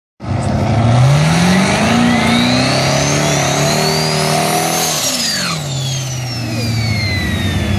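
Turbocharged 5.3-litre LS V8 drag car revving hard during a burnout. The engine pitch climbs for about four seconds with a high whine rising alongside it, then the throttle is released about five seconds in and the whine winds down slowly.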